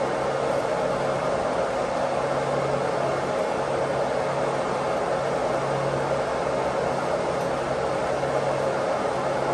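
Water pump machinery running steadily inside a pump house: a constant loud mechanical hum with a steady low drone over a broad noisy hiss.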